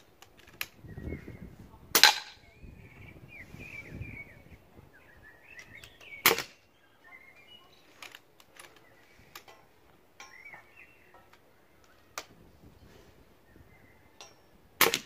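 Moderated PCP air rifles, a Brocock Concept XR and an FX Crown .22, firing three single shots, about four and then eight seconds apart, with fainter clicks between the shots. Birds chirp in the background.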